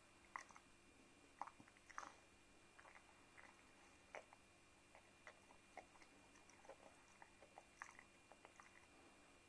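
Chow chow chewing and gnawing a small treat: quiet, irregular crunches and wet clicks of its teeth and jaws.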